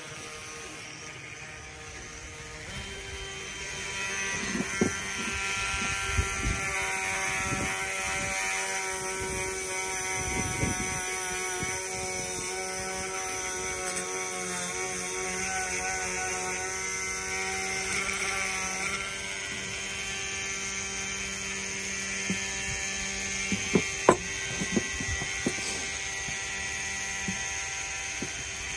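Cordless brushless rotary tool running steadily with a steady whine, polishing the inside of a Predator 212 cylinder head's port with a fine 320–400 grit padded abrasive bit; it gets louder about four seconds in. A few sharp knocks come through, the loudest about three-quarters of the way in.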